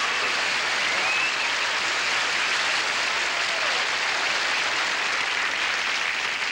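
Television studio audience applauding steadily.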